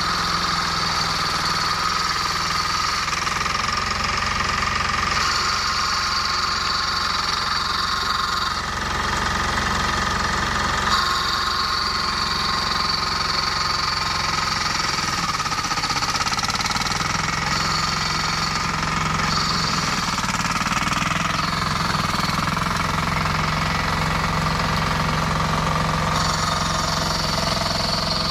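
18 hp diesel engine of a flail mower running steadily with a knocking clatter, and a high whine over it that drops away and returns several times.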